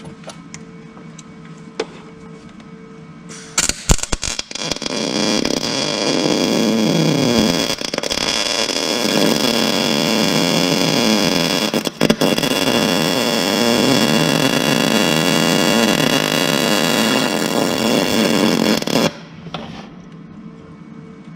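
Arc welding on the paver's steel: a few short sputtering arc starts, then a steady crackling bead for about fifteen seconds that cuts off suddenly near the end, as cracks are welded up and worn edges built up with weld.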